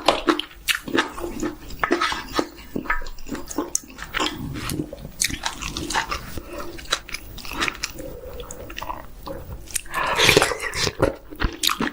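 Close-miked chewing and biting of chicken: a steady run of irregular mouth smacks and clicks.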